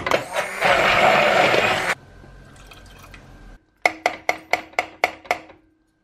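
Hand-held stick blender running in a pot of thick leek soup for about two seconds, a loud churning whir, then stopping. Later comes a quick run of about eight sharp knocks on the cooking pot, a little over five a second.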